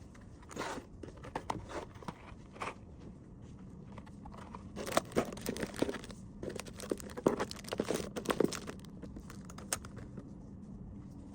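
Plastic packaging crinkling and rustling, with light clicks and taps, as small items are handled; the handling is busiest in the middle of the stretch, then dies down to a faint steady hum near the end.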